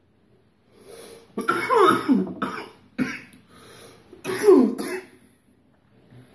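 A man coughing in a harsh fit after a heavy lung hit of vapour, several coughs in a row with throat clearing, the loudest bouts about a second and a half and four and a half seconds in.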